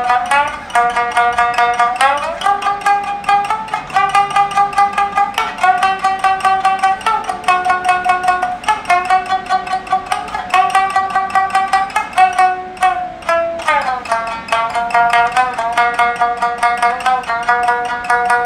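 Shamisen music: a fast plucked melody of quickly repeated notes, with pitch slides between phrases.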